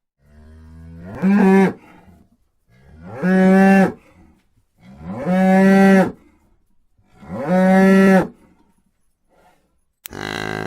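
Cow mooing four times, about two seconds apart, each moo rising in pitch and then held on a steady note. Just before the end a different, shorter call begins.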